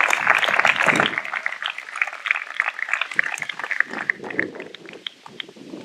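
Audience applauding, the clapping dense at first and thinning out to a few scattered claps near the end.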